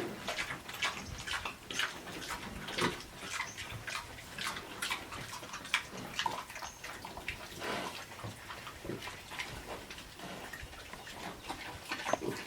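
Native pigs eating wet feed: a rapid, irregular run of smacking and slurping sounds.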